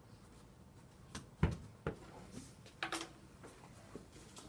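A few soft knocks in a small room, the loudest a low thump about a second and a half in, with a brief short vocal sound near the middle.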